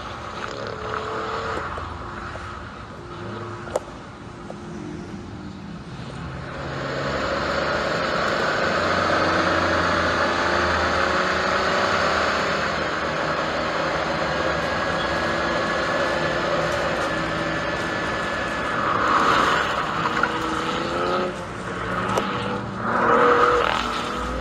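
Cadillac CT4-V Blackwing's twin-turbo 3.6-litre V6 exhaust at speed on a racetrack, the engine note rising and falling in pitch as it accelerates. It grows louder about seven seconds in, with stronger swells near the end.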